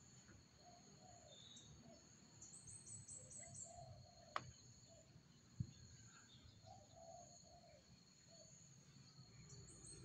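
Faint outdoor background: a steady high insect drone, with a quick run of high chirps about two and a half seconds in and two small sharp clicks around the middle.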